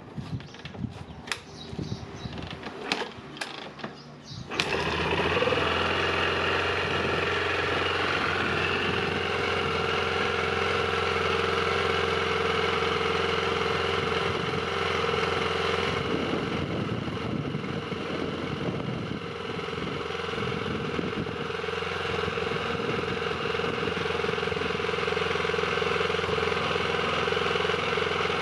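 KTM 625 SMC single-cylinder four-stroke engine being kicked over, a string of sharp knocks, until it catches about four and a half seconds in and settles into a steady idle. It is a first start after about five years of storage.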